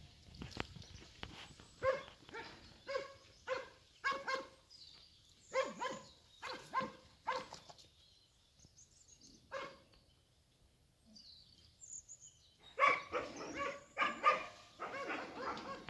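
A dog barking off-camera: a run of single barks about one or two a second, a long pause, then a quicker, denser burst of barking near the end.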